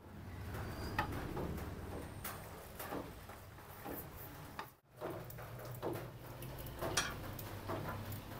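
Scattered light clicks and taps of hands handling food and utensils, over a steady low hum, with a brief dropout near the middle.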